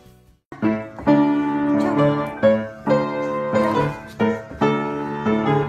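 Piano being played: a run of chords struck one after another about every half second, starting about half a second in after a brief gap.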